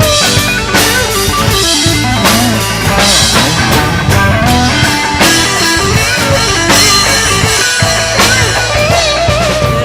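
Live band playing an instrumental passage of a country-rock song: a guitar lead with bending notes over a steady drum beat.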